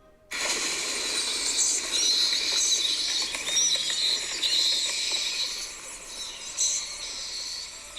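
Ring doorbell app's Halloween "Bats" alert tone: a sound effect of many short high squeaks and chirps over a steady hiss, cutting in suddenly and easing off a little near the end.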